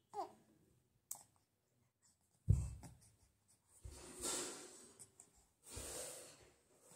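A short baby coo right at the start, then handling noises as the infant is moved on a blanket: a click, a dull bump, and two stretches of soft rustling, breathy noise.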